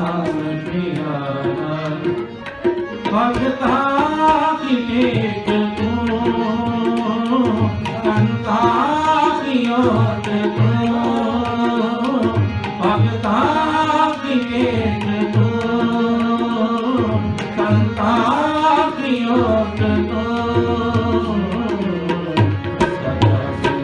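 Sikh kirtan: a man singing Gurbani to harmonium accompaniment, with tabla drums playing a steady rhythm underneath.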